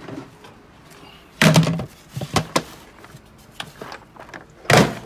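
Two loud thumps, about a second and a half in and near the end, with lighter clicks and knocks between them, as bags and parts are handled and set down in a small enclosed space.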